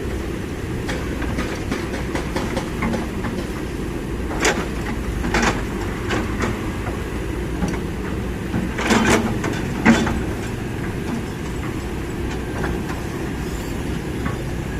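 Kobelco SK200 hydraulic excavator working, its diesel engine a steady low rumble, with a few sharp metallic clanks; a cluster of them comes about nine to ten seconds in.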